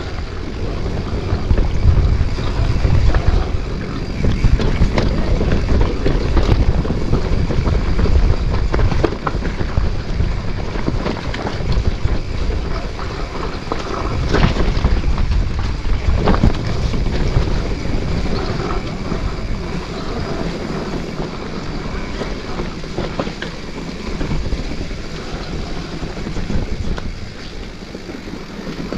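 Wind buffeting the microphone of a riding camera over a mountain bike rattling down a rocky trail, with scattered clacks and knocks from the tyres and frame hitting stones.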